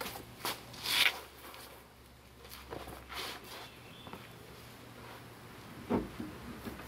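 Scuffing and crunching on gravel as a person moves about and gets down on the ground, a few short bursts in the first few seconds. A single dull thump about six seconds in.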